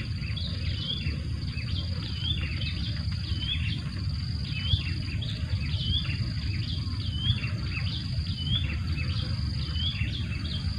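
Outdoor ambience: a bird repeating a short, curved chirp about once a second over a thin, steady high insect drone, with a low steady rumble of wind on the microphone underneath.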